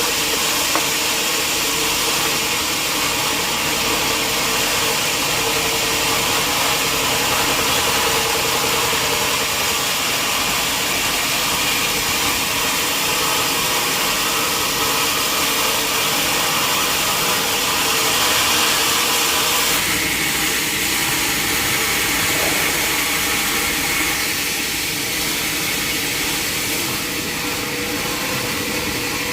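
Sawmill machinery running steadily, with a shift in its tone about twenty seconds in.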